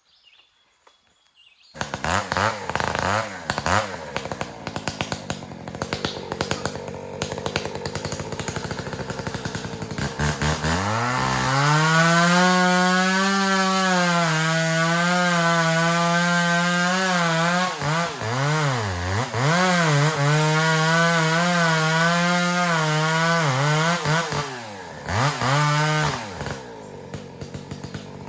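Two-stroke chainsaw running at low revs with the throttle blipped, then held at full throttle from about ten seconds in, its pitch sagging and recovering as it works in the wood, before dropping back to low revs near the end.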